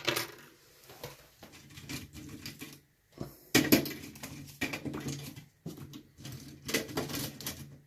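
Small metal lock parts clicking and scraping in the hand as a padlock core is worked on, in irregular bursts with the loudest clatter about halfway through and again near the end.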